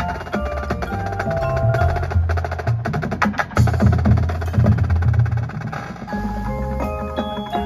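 Marching percussion ensemble playing its show: marimbas and vibraphones of the front ensemble, with drums and a low bass line underneath. Rapid mallet strokes throughout, busiest around the middle, thinning after about six seconds to sparser ringing notes.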